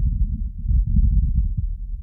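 Heart sounds heard through a stethoscope: low, muffled thuds over a dense rumble.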